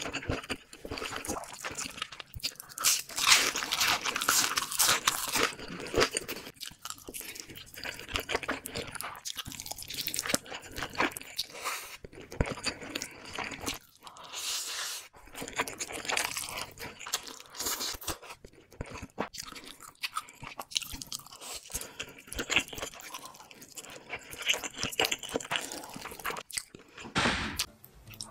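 Close-miked eating of spicy instant noodles with cheese and corn: noodles slurped and chewed, with wet mouth sounds and crunchy bites. A longer slurp comes about three seconds in.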